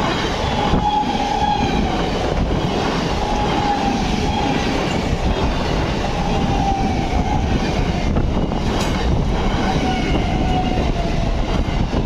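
Modern ICF-built Medha AC electric multiple unit (EMU) local train passing at speed close by: a steady rumble of wheels on rail with a rhythmic clickety-clack over the rail joints, and a faint whine that comes and goes several times.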